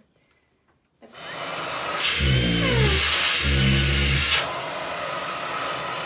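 Cordless handheld vacuum cleaner switching on about a second in and spinning up to a loud steady whir. Twice its sound changes, with a low flutter and a bending motor pitch, as the nozzle sucks onto the skin of a cheek.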